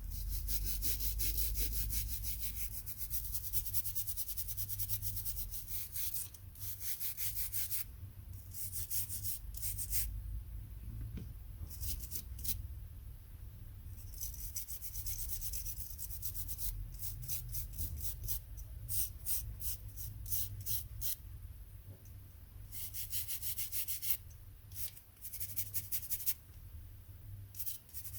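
Toothbrush bristles scrubbing a soldered Arduino Nano circuit board in quick back-and-forth strokes, in runs with short pauses, to clean flux residue off the header pins. A steady low hum sits underneath.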